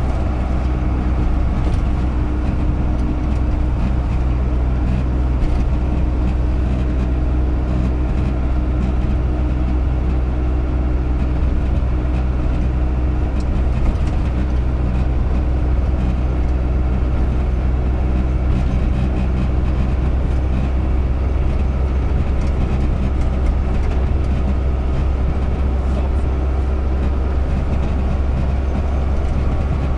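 Vehicle engine and tyre noise heard from inside the cabin while cruising steadily on a highway: a loud, steady low drone with an engine hum. A single click about halfway.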